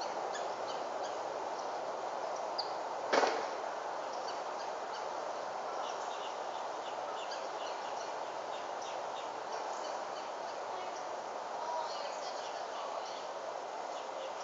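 Steady outdoor background hiss with scattered short, high bird chirps, and one brief sharp sound about three seconds in.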